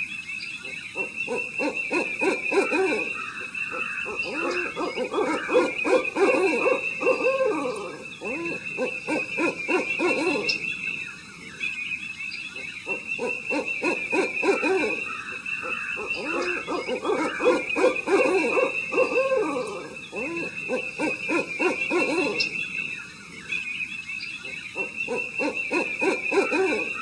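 Owls calling in bouts of rapid, quavering low notes lasting several seconds each, with short pauses between bouts. Crickets chirp steadily and high underneath throughout.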